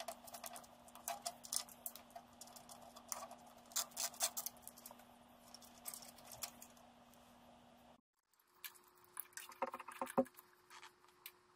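Hands handling wires and crimped metal terminals at a tractor's ammeter and switch terminals: irregular small clicks and taps. The sound cuts out briefly about eight seconds in, then more clicks follow with one sharper knock.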